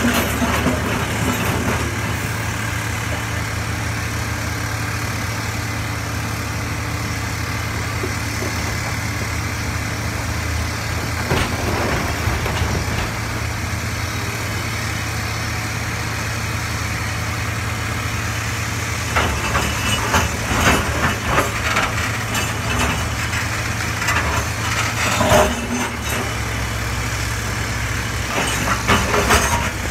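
Komatsu PC350 hydraulic excavator's diesel engine running steadily under digging load, with short bursts of knocking and scraping as the steel bucket works through broken rock: once about eleven seconds in, several times around twenty seconds in, and again near the end.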